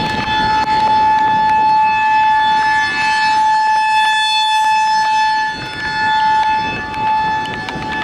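Federal Signal 2001-SRNB rotating electromechanical warning siren sounding its steady, high-pitched single tone for a tornado warning. The sound swells as the horn swings round toward the listener around the middle and thins again as it turns away.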